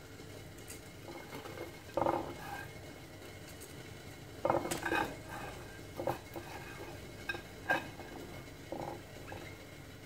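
Damp, oiled angel-hair vermicelli being scooped by hand from a clay platter into a metal steamer pot: soft rustling handfuls with a few light knocks of hand and pot against the dishes, in short separate bursts. The strands have just soaked up water and are going back for their second steaming.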